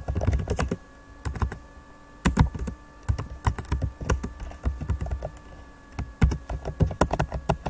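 Typing on a Lenovo Yoga 510 laptop keyboard, heard through the laptop's own microphone: irregular runs of key clicks with short pauses between words. Underneath is a faint steady hum from the laptop's cooling fan.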